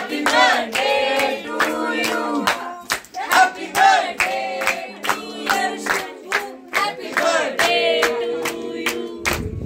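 A group of people singing together while clapping their hands, over music with held notes.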